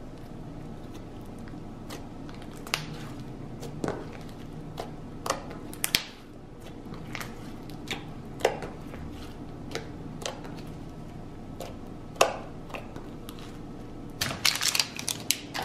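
Red clay slime being stretched, folded and pressed by hand, giving faint pops at irregular moments, with a quick run of crackling pops near the end, over a low steady hum.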